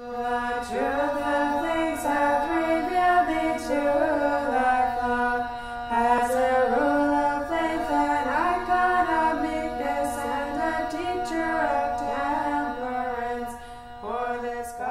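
Orthodox church chant: a sung melody over a steady held drone note.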